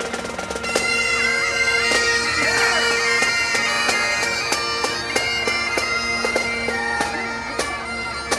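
Pipe band playing: bagpipes sound a steady drone under a melody full of quick grace-note ornaments, with drums striking a regular beat.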